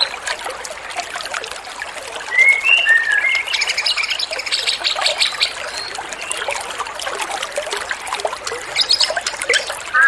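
A small songbird calls over a steady trickle of running water: a few short whistled chirps about two seconds in, then a high buzzing trill.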